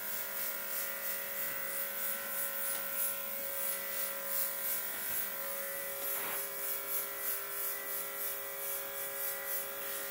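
Small battery-powered airbrush compressor (USB-C rechargeable, about 20 PSI) running with a steady whine. Air hisses from the airbrush as paint is sprayed, the hiss pulsing about three times a second.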